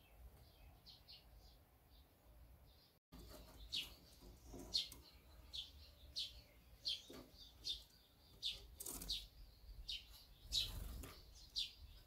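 Barn swallows chirping at the nest: faint high chirps at first, then from about three seconds in louder short, sharp chirps about once a second.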